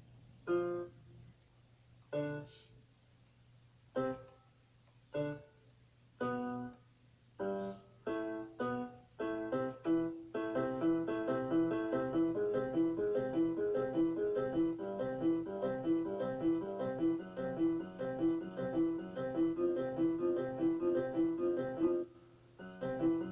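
Solo piano playing a melody: single notes or chords spaced a second or so apart at first, then from about ten seconds in a steady stream of quick repeated notes, with a short pause near the end.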